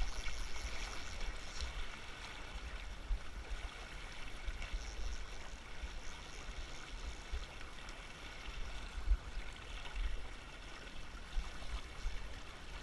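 Steady rush of flowing river water, with uneven low rumbling on the microphone underneath.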